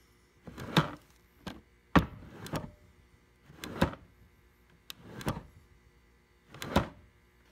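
Hard plastic clunks and rattles from a Milwaukee organizer box shifting on its PACKOUT base: about five heavy knocks roughly a second and a half apart, with lighter clicks between them.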